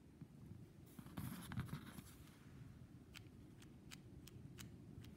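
Faint handling of a Kenner Super Powers Robin plastic action figure: a soft rustle about a second in, then a run of small sharp clicks, about three a second, in the second half.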